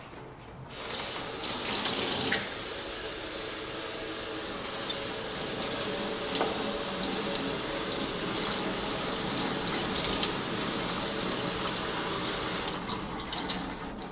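Kitchen tap running into a metal bowl of mixed baby greens as they are rinsed: a steady splashing of water that starts about a second in and tapers off near the end.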